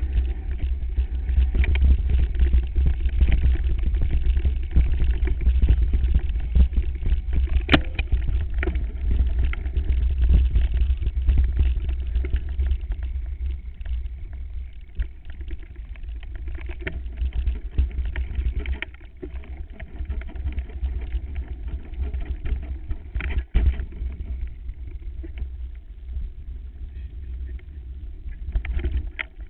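Mountain bike rattling and jolting over bumpy grass, with wind buffeting the microphone as a heavy low rumble. The rumble eases about two-thirds of the way through, and sharp knocks stand out about eight seconds in and again about twenty-three seconds in.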